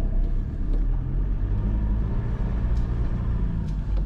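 Engine and road noise inside the cab of a van being driven: a steady low hum with slight changes in pitch.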